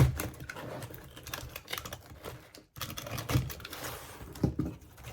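Hands handling and opening a shipping box and its packaging: irregular taps, clicks and knocks with rustling between them, the sharpest knock at the very start.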